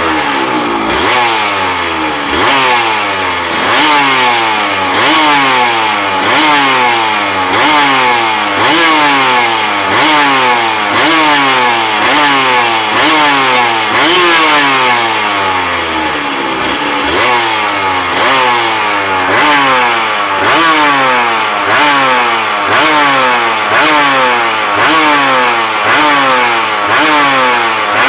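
Aprilia RS250 race-version two-stroke V-twin motorcycle engine being revved on the throttle, about once a second. Each rev rises sharply and then sinks slowly back.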